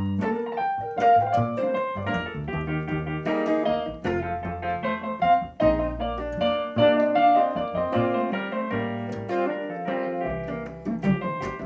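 Roland RD-700SX digital stage piano played in busy runs and chords, with a double bass playing low notes underneath.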